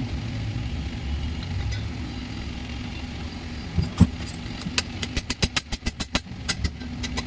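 Steady low engine-like hum, then from about four seconds in a quick run of sharp metallic taps, roughly three to four a second, from hand tools working on a car alternator being taken apart.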